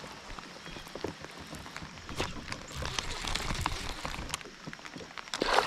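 Rain falling, an even hiss with many small sharp drop ticks, growing denser from about two seconds in, with a louder burst of noise near the end.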